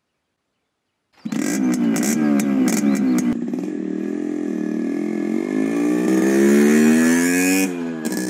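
Motorcycle engine starting up about a second in with a few sharp clicks, then revving, its pitch climbing for several seconds before dropping suddenly near the end as the bike moves off.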